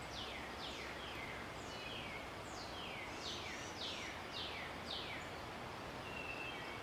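Small birds calling: a string of high, quick chirps, each sliding steeply downward in pitch, coming irregularly about every half second, over a steady outdoor background hiss.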